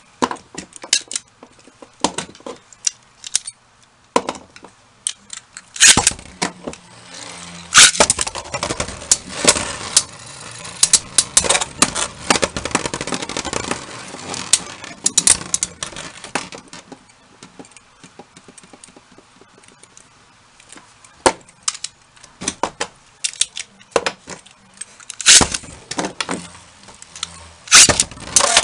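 Two metal Beyblades, Lightning L-Drago 100HF and Poison Serpent SW145SD, spinning and clashing in a plastic Zero-G stadium: repeated sharp metallic clacks of collisions. The clashing is busiest from about six seconds in to about sixteen, with a continuous rattling scrape of the spinning tops against the plastic, then thins to scattered hits.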